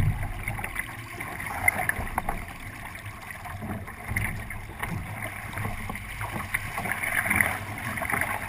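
Water rushing and slapping along the hull of a 29er sailing dinghy under way, with wind buffeting the microphone. Irregular short knocks from the boat run through it.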